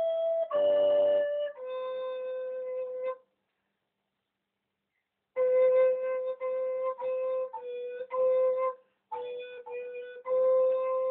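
A recorder playing a simple tune: a few notes, a pause of about two seconds, then a run of tongued notes repeated mostly on the same pitch.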